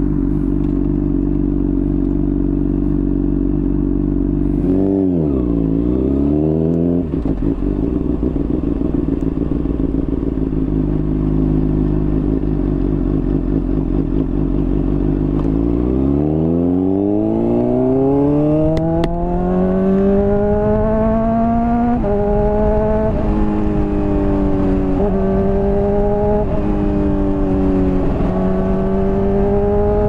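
Honda CBR600RR inline-four engine through a slip-on exhaust, running steadily at low revs with a brief dip and recovery in pitch about five seconds in. About halfway through it accelerates hard, the pitch climbing steeply. It then holds higher, fairly steady revs with several brief dips.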